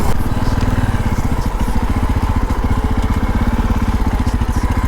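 Motorcycle engine running steadily, with a rapid, even beat.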